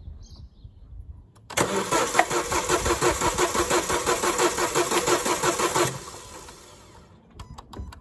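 Renault Scenic's four-cylinder petrol engine cranked over on the starter motor for about four seconds with a compression gauge fitted to one cylinder, a fast, even beat as each compression stroke comes round. It does not fire, and cranking stops suddenly, followed near the end by a few sharp clicks.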